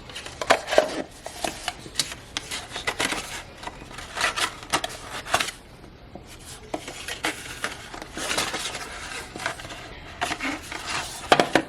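Paper and small box packaging being handled and unwrapped, a run of crinkly rustles with many small clicks and knocks.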